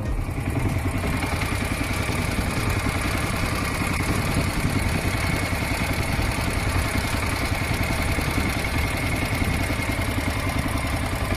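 Boat engine running steadily at a low, even pitch, heard from on board.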